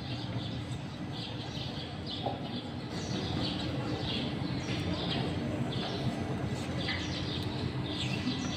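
Small birds chirping in short repeated bursts over a steady low hum.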